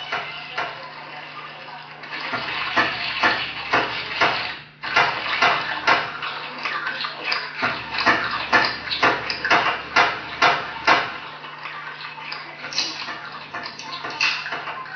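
Live-mixed sample soundscape of water and clattering, dish-like sounds: dense, rapid knocks and splashes, busiest from about two seconds in until about eleven seconds, with a brief cut-out in the middle, over a low steady hum.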